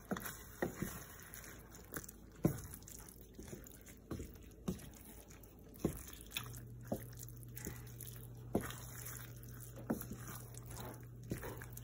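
A spoon stirring thick, creamy risotto in a pot: soft wet squishing with irregular light taps and clicks of the spoon against the pan. A low steady hum comes in about six seconds in.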